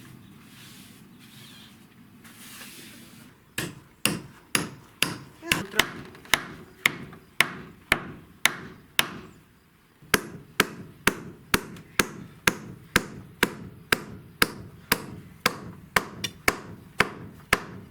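Hammer blows, struck in a steady series at about two a second, with a short pause about halfway through before the hammering resumes.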